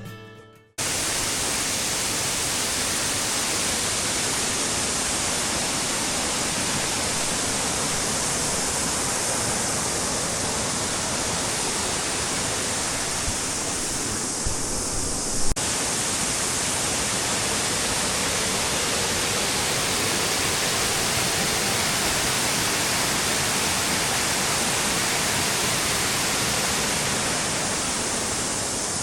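A waterfall's steady, loud rush of falling water, which takes over when background music cuts off about a second in. A single brief click is heard near the middle.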